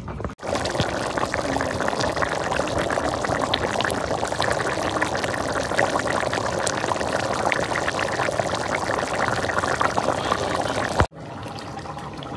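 Chicken and bottle gourd curry bubbling in the pot as it cooks: a dense, steady crackle of bubbles that cuts in just after the start and cuts off abruptly near the end.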